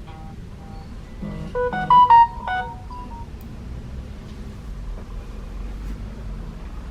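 Short electronic chime from a smartphone: a quick run of several pitched notes lasting about two seconds, loudest in the middle, over a low steady background hum.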